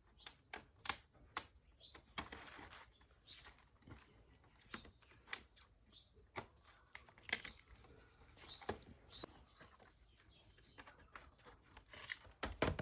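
Plastic snap clips of an HP 245 G5 laptop's bottom cover popping loose as an old plastic debit card is pried along the seam. Scattered sharp clicks come at irregular times, with short scrapes in between.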